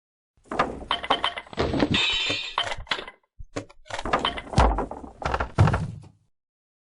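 A rapid series of knocks and thumps, with a short scraping sound about two seconds in, stopping abruptly about six seconds in.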